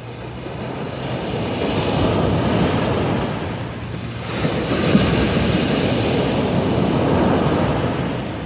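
Sea waves surging in and washing out, in two swells: the first peaks about two seconds in and ebbs, the second rushes in about halfway through and fades near the end.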